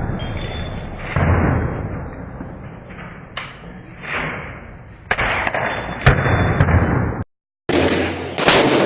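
Rifle shots at an outdoor range, about seven in all at irregular spacing, each with a long echoing tail. The sound drops out completely for a moment about seven seconds in.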